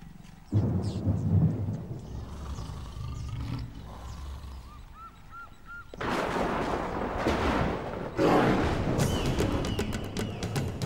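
Dramatic trailer sound effects: a sudden loud, deep rumbling boom about half a second in, a quieter rumble, then two more loud crashing surges about six and eight seconds in, with a few faint short chirps.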